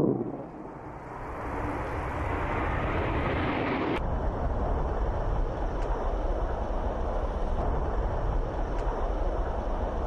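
Fighter jet engine noise: the noise builds over the first few seconds, then cuts abruptly about four seconds in to steady, lower-pitched jet noise.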